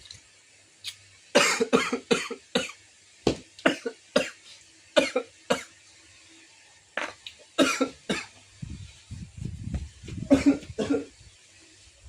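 A person coughing repeatedly, about a dozen coughs in several short fits, brought on by the chilli heat of very spicy noodles.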